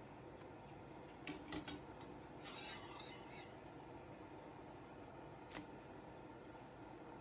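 Faint kitchen handling sounds over a steady low hiss: a few light clicks about a second in, a brief scraping rub near the middle, and one more click later.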